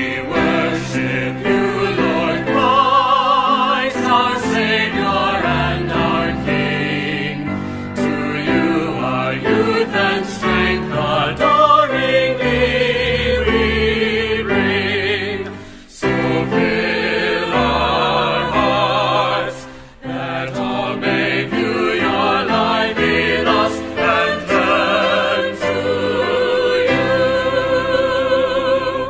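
Choir singing a hymn, the held notes wavering with vibrato; a short break about sixteen seconds in, and a long held note near the end.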